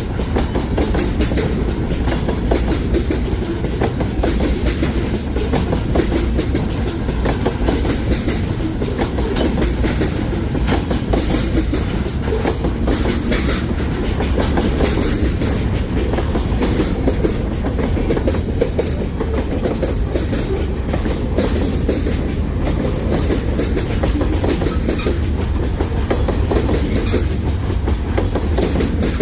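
Train cars rolling steadily past, a continuous rumble with the wheels clicking and clacking over the rail joints.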